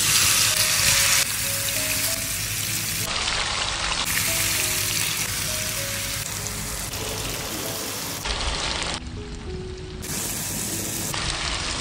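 Food sizzling in hot oil in a non-stick kadai as chicken is stir-fried with a slotted spatula, under background music. The sizzle starts and stops abruptly several times.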